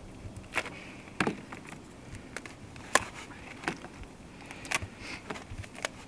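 Dry bark cracking and snapping as it is pried and broken off felled logs by hand: irregular sharp cracks, about eight of them, the loudest about three seconds in.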